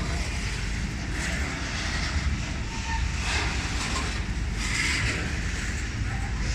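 Freight train rolling past at a steady pace: a continuous low rumble of wheels and cars on the rails, with brighter rushing swells now and then.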